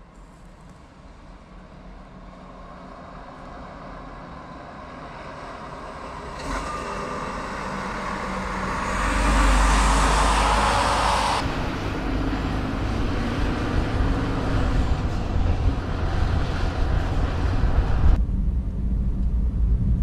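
Mercedes-Benz Actros diesel semi-truck approaching and driving past, its engine and tyre noise growing steadily louder to a peak about ten seconds in as it passes close by, then a steady low rumble. Near the end the sound turns duller and deeper, as heard from inside the cab.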